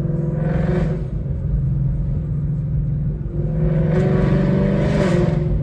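Ford Mustang GT's 5.0 V8 with freshly installed Kooks long-tube headers running under way, a steady exhaust rumble that swells louder twice as the car accelerates, about half a second in and again from about three and a half seconds in.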